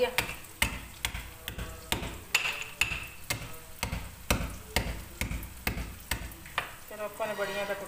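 Steel pestle pounding dried lentil wadiyan in a steel mortar, sharp metal strikes at about two a second.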